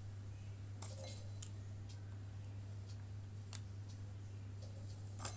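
A few faint, scattered clicks and taps as fingers set cashews, glacé cherries and raisins into cake batter in an aluminium tin, over a steady low hum.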